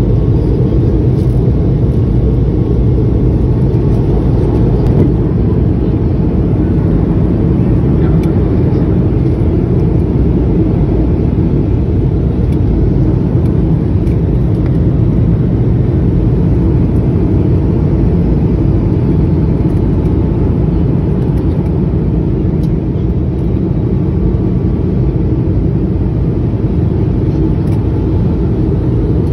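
Steady low roar inside the cabin of a Boeing 717-200 airliner on approach: engine and airflow noise from its rear-mounted Rolls-Royce BR715 turbofans, heard from a window seat over the wing.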